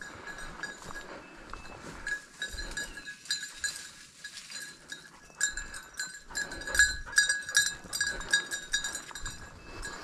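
A hunting dog's collar bell clanking irregularly as the dog moves through the undergrowth, busier and louder from about halfway through, over rustling brush and footsteps.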